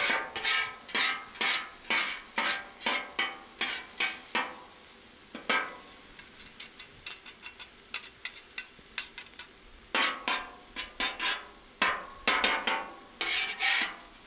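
Two metal spatulas scraping and clacking on the hot flat top of a Cuisinart 360 XL griddle, tossing diced ham, peppers and onions over a steady sizzle. The strokes come in quick runs, thin out for a few seconds in the middle, then pick up again.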